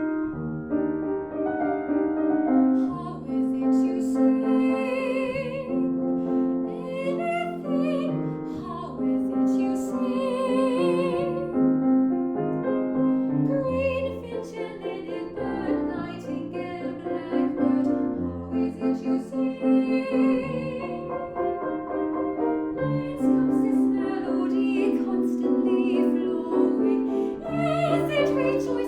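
A woman singing in a classical, operatic style with wide vibrato over piano accompaniment, in long held notes.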